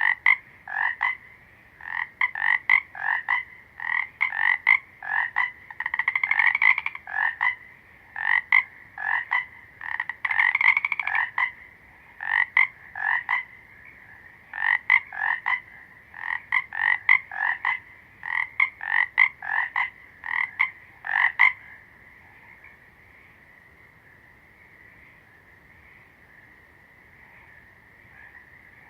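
A frog croaking in short, repeated calls, often in quick pairs, about two a second, which stop about 21 seconds in. A faint, steady, high buzz runs underneath and carries on after the calls stop.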